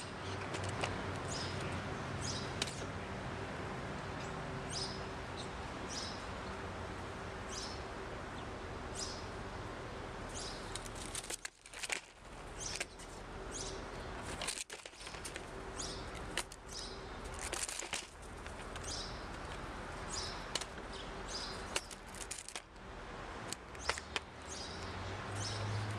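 Songbirds chirping: short, high chirps repeated every second or so. Under them runs a steady low hum, with scattered taps and clicks from feeding at the seed dish and brief wing flaps.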